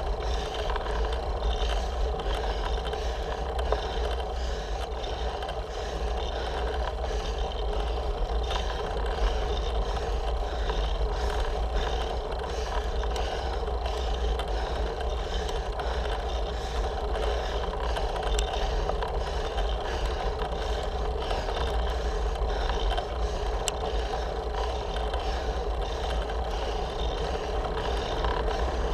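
Road bike climbing slowly, heard from a camera mounted on its handlebars: steady tyre-on-road noise with a low rumble and a fine rattle from the bars' vibration.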